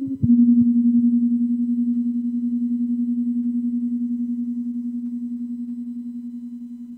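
A single low electric guitar note, struck once and left to ring, fading slowly with a fast, even pulsing wobble.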